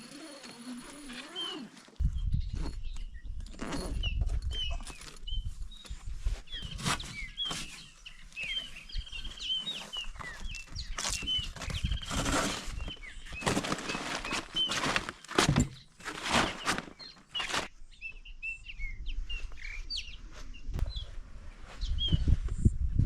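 Small birds calling in many short, quick chirps, over repeated bursts of rushing noise and a low rumble.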